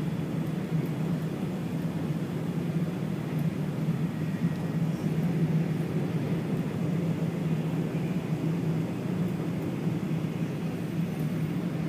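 E4 series Max Shinkansen running, heard from inside the passenger cabin: a steady low rumble with no distinct events.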